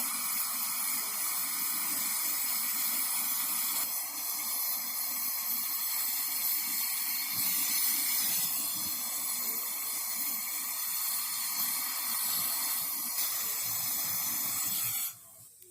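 Brazing torch flame hissing steadily while a copper refrigerant pipe joint on a refrigerator is brazed. The hiss cuts off abruptly near the end.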